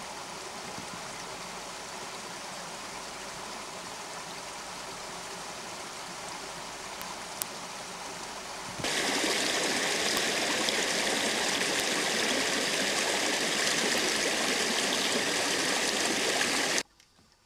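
Steady rush of running water from a shallow rocky stream. About nine seconds in, it switches abruptly to a louder, brighter rush, which stops suddenly near the end.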